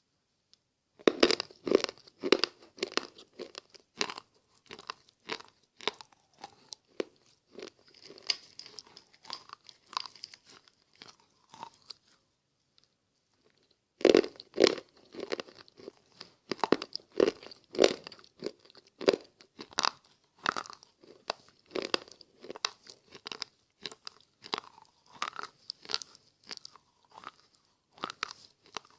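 A person biting and chewing slate pencils: a run of sharp, crisp crunches at an uneven pace. The crunching stops for about two seconds halfway through, then comes back loudest right after.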